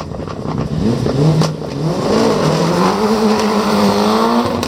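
Nissan Sunny GTI-R Group A rally car's turbocharged four-cylinder engine accelerating hard through the gears. The engine note climbs, drops back at each shift and climbs again, with sharp cracks about a second and a half in and again at the end.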